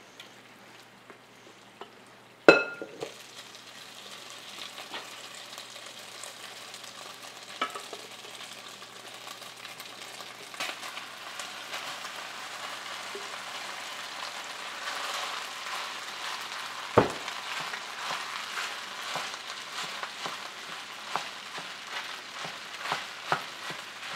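Cooked white rice sizzling as it fries in olive oil in a hot pan, the hiss building as it heats. A ringing metal clank comes a few seconds in, one sharp knock about two thirds through, and small taps near the end as a wooden spoon stirs the rice.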